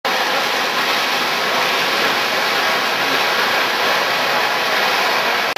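Pack of dirt kart engines racing together, heard as a steady blended noise with no single engine standing out.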